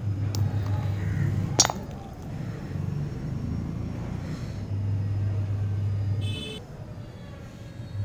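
Homemade microwave-oven-transformer arc welder humming low and steady in stretches that start and stop abruptly. One sharp knock comes about one and a half seconds in.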